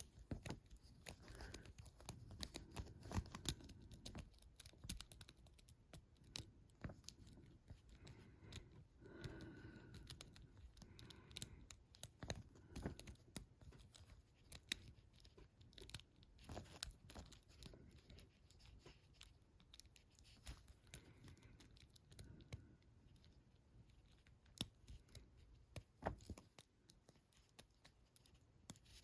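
Faint, irregular metallic clicks and scratches of a lock pick and tension wrench working the pin stack of a Comando padlock, a lock with crunchy security pins.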